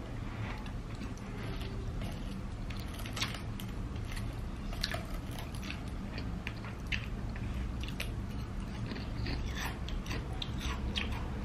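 Close-miked chewing of a mouthful of cheeseburger, with many irregular short mouth clicks over a steady low hum.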